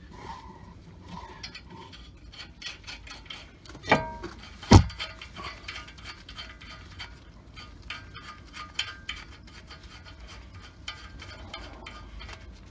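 New brake rotor being handled and seated over the wheel studs onto the hub: scraping and small metallic clicks, with two sharp knocks about four to five seconds in, the second the louder.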